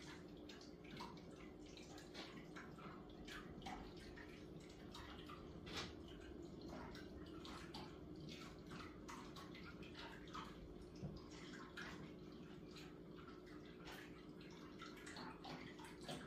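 Near silence: faint room tone with a steady low hum and scattered faint, irregular ticks.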